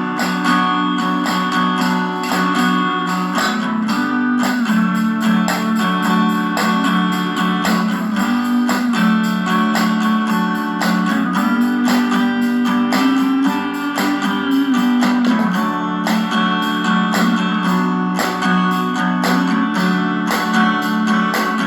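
Acoustic guitar strumming, with percussion knocked out on jars and assorted tools in a close, regular beat.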